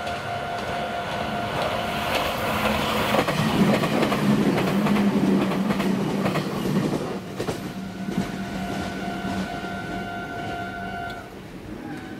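Red Meitetsu electric train passing on curved track, its wheel and running-gear rumble swelling to a peak a few seconds in and then fading away, with wheels clicking over rail joints as it goes by.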